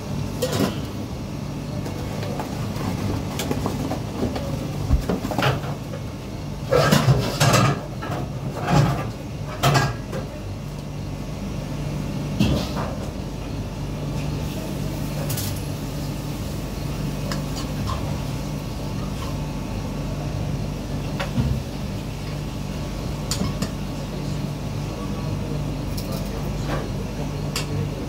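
A steady low machine hum with scattered knocks and clatters, the loudest several in quick succession between about seven and ten seconds in.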